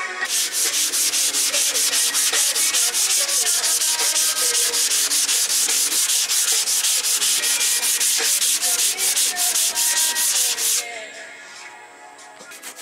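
Sandpaper on a sanding block being rubbed over car body panels in quick, even back-and-forth strokes: hand block-sanding of repaired spots before primer. The sanding stops about two seconds before the end.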